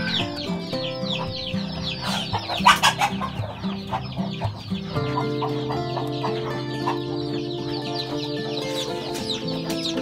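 Newly hatched chicks peeping continuously in rapid, falling high chirps, with a louder burst a little before three seconds in.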